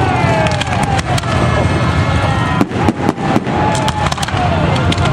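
BriSCA F1 stock cars' V8 engines racing, a heavy low rumble with an engine's pitch sliding down in the first second, broken by repeated sharp exhaust cracks.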